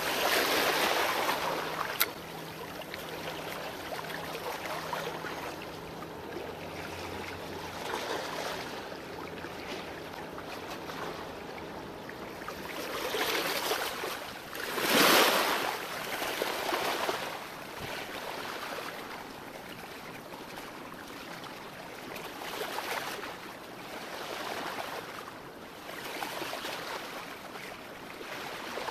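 Small waves washing and lapping against shoreline rocks, rising and falling in swells, with the largest wash about halfway through. A single sharp click about two seconds in.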